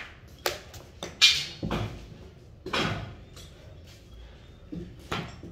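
A run of irregular knocks and clatters, about eight in all, the loudest a little over a second in: gear and tools being picked up and set down on a concrete floor.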